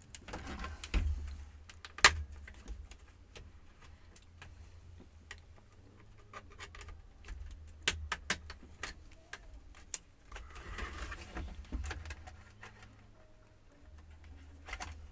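Scattered clicks, taps and rattles of a Compaq F700 laptop's plastic case and parts being handled and pried at during disassembly, with one sharp click about two seconds in and a short rustling stretch later on.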